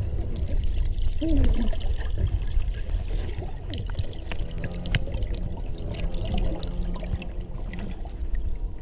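Muffled underwater sloshing and bubbling of churned water, heard through a camera's waterproof housing, over a steady low rumble with scattered small clicks.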